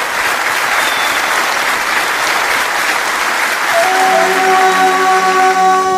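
Applause. About four seconds in, music with long held notes comes in over it.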